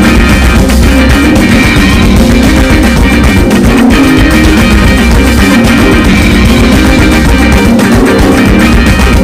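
Loud background music: rock with a guitar and a steady beat.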